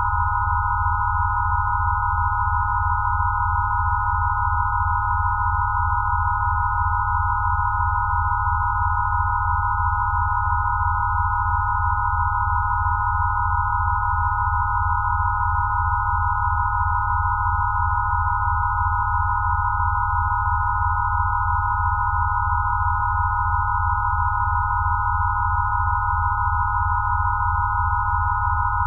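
Electronically generated 'rife frequency' sine tones, held steady: a cluster of pure tones around 1 kHz over a low tone that pulses evenly and never changes.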